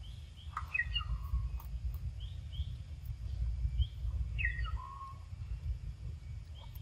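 Birds calling: two falling calls, one about half a second in and one past four seconds, with scattered short high chirps, over a constant low rumble.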